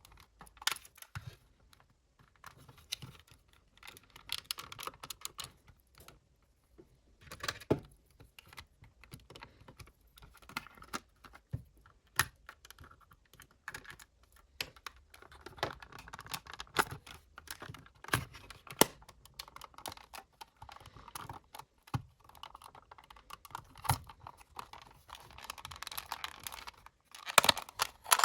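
Irregular small clicks, taps and light rattles of hands handling and working on a cassette player's plastic casing and small parts.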